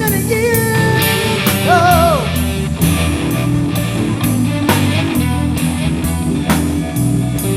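Live rock trio jamming: electric guitar playing sustained lead notes with a string bend about two seconds in, over bass guitar and a steady drum beat.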